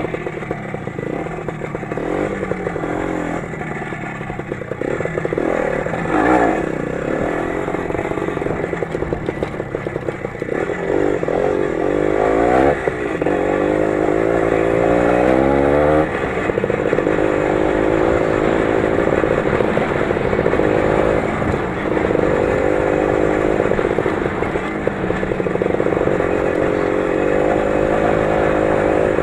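The 20-horsepower engine of the Lider 3.221 running under load while driving, its revs rising and falling, climbing for several seconds before settling at a steadier, wavering pitch.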